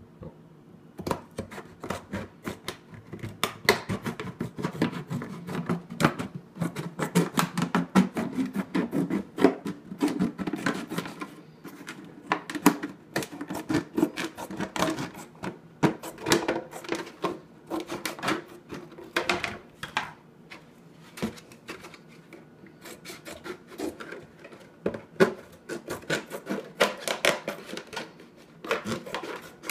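Scissors cutting through a plastic milk jug: a long run of quick, irregular snips and crunches as the blades close through the stiff plastic, with the jug's walls rustling as it is turned in the hands.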